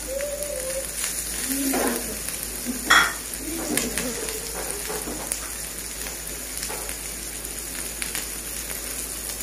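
Chicken and capsicum filling frying in a non-stick pan, a steady sizzle, while a silicone spatula stirs and scrapes it. A brief louder knock about three seconds in.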